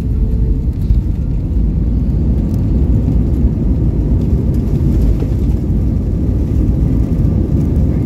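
Airbus A320 decelerating on the runway after touchdown, heard from inside the cabin: a loud, steady low rumble of the engines and the wheels on the runway as the aircraft brakes hard with its ground spoilers raised.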